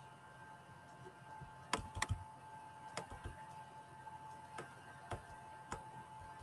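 About six faint, sharp computer mouse clicks at uneven intervals, as the mouse scrolls a document down page by page, over a faint steady hum.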